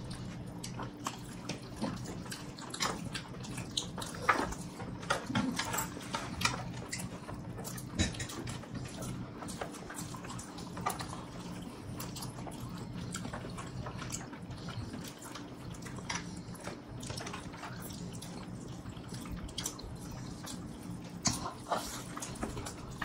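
Close-up wet chewing, lip smacks and small clicks of people eating biryani and meat with their fingers, scattered and uneven, over a faint steady hum.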